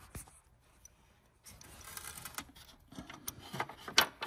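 Small clicks and light scraping as a metal hood-strut mounting bracket and its bolt are worked into place by hand, starting after a short pause, with one sharper click near the end.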